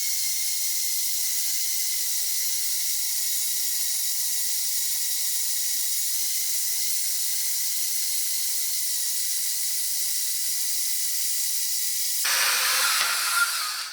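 WEN 94396 portable metal-cutting bandsaw cutting through 1.5-inch-thick steel rebar: a steady hissing grind with a faint high tone. About twelve seconds in the sound grows louder and fuller, then stops shortly before the end.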